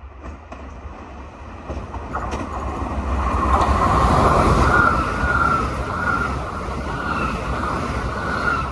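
Electric multiple unit train, a Great Northern Class 387, approaching and running past at speed: a rumble of wheels on rail that builds to its loudest about four to five seconds in, with a wavering high whine over it.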